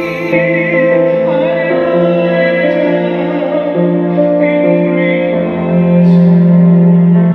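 Grand piano accompanying singing, with long held notes in a slow song.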